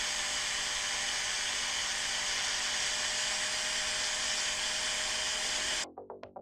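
Power tool spinning a 3M abrasive gasket-removal pad against the engine block, scrubbing off old gasket material: a steady whine with a grinding hiss. It cuts off suddenly near the end, and electronic music with a beat comes in.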